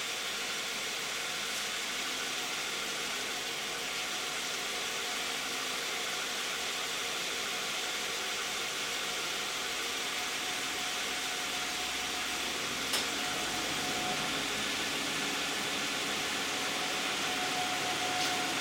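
2010 Toyota Camry's 3.5-litre V6 idling steadily with the hood closed and all the lights switched on, heard as an even hum under a hiss. One sharp click about two-thirds of the way through.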